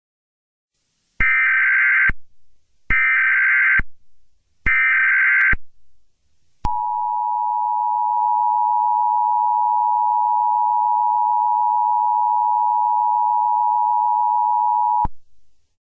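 Emergency Alert System tones: three short bursts of SAME digital header data, each about a second long, followed by the EAS two-tone attention signal, a steady dual tone held for about eight seconds that cuts off suddenly.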